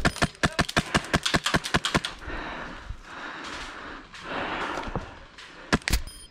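HPA airsoft rifle (Wolverine MTW) firing a rapid string of sharp shots, about eight a second, for roughly two seconds. Two more single shots come near the end.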